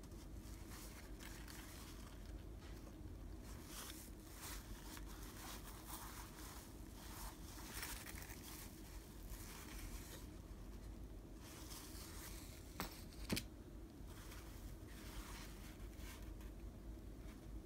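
Faint rustling and brushing of cloth as fabric pouches are handled and turned over, with two sharp clicks about half a second apart about two-thirds of the way through.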